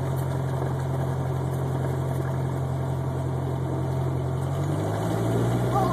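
Light aircraft's piston engine and propeller running at low power, heard from inside the cabin as a steady low hum. About five seconds in, the engine note rises and gets a little louder as it speeds up.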